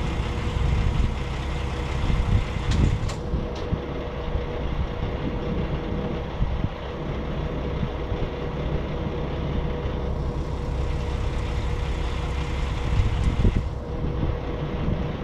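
Semi truck's diesel engine idling with a steady low rumble and a faint steady hum, with a few brief clicks.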